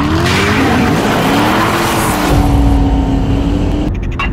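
A car engine revving and passing by with tyre noise, its pitch rising at first and then holding steady, under a swelling rush of noise; a few sharp clicks come just before the end.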